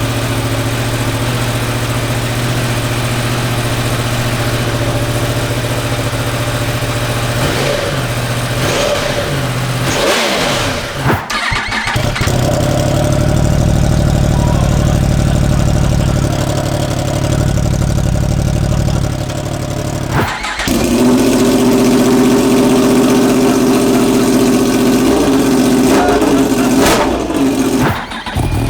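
2023 Yamaha R1M's crossplane inline-four engine running loud through an aftermarket exhaust, held at steady engine speeds that step up twice, with brief throttle changes between.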